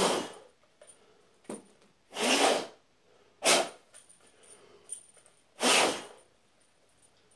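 Four short rushes of air-like noise, each about half a second, made while clearing clinging bits of crumbly foam packing off the hands.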